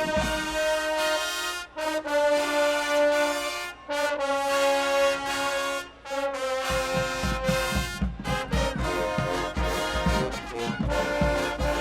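Marching band brass section playing loud, held chords with the drums silent. About seven seconds in, the drumline and bass drums come back in under the horns.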